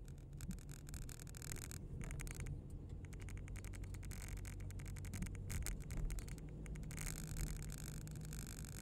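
Car's engine and tyres running at low speed, a steady low rumble heard from inside the cabin.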